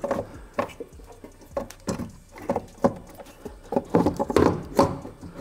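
Irregular light clicks and knocks of a car's wiper linkage and motor assembly being handled and seated in the cowl, metal and plastic parts tapping together. A few louder knocks come about four seconds in.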